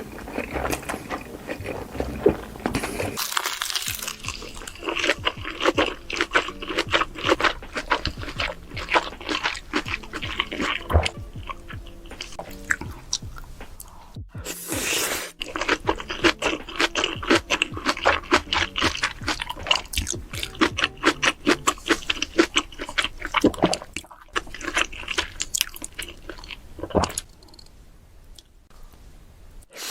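Close-miked eating: big bites and loud crunchy chewing, with music faintly underneath. The sound changes abruptly a few times as one eater gives way to the next.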